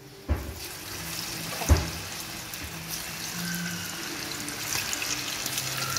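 Batter-coated boneless chicken pieces going into a kadai of hot oil: the oil starts to sizzle suddenly less than half a second in, then deep-fries with a steady hiss. A sharp knock about a second and a half in.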